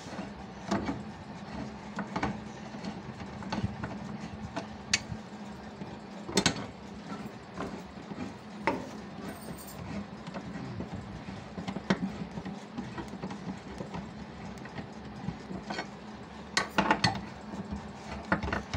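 Screwdriver turning the screws of a Whirlpool top-load washer's mechanism mounting: irregular sharp metal clicks and knocks, a cluster of them near the end, over a steady low hum.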